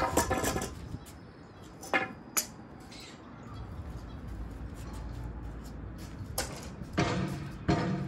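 Wooden planks knocking and clattering on a concrete floor as they are handled and set down. There are sharp knocks at the start, two close together about two seconds in, and another about six seconds in. Background music comes in at about seven seconds.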